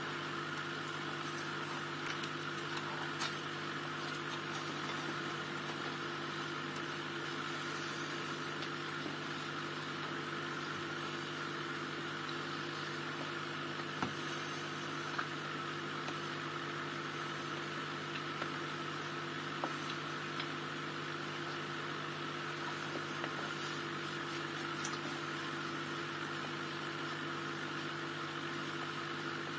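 Aquarium bubbler running: a steady hum with a constant low tone under the even fizz of a stream of bubbles rising through the tank water. A few faint clicks now and then.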